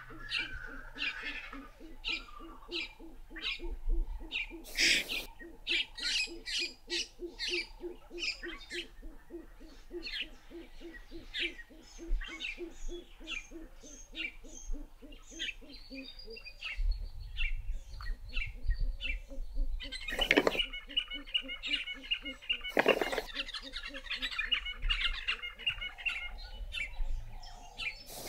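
Wild birds calling and chirping over a quick, even run of low repeated notes that stops about sixteen seconds in, with a trill coming in later. Three sharp knocks stand out above the birds, one early and two close together later on.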